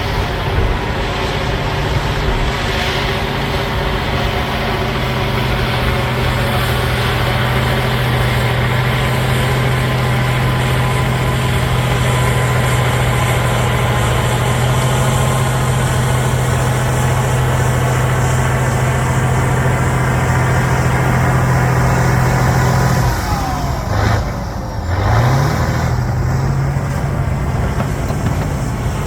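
Caterpillar D9L bulldozer's V12 diesel engine running steadily under load. About 23 seconds in its speed drops sharply, then climbs back about two seconds later.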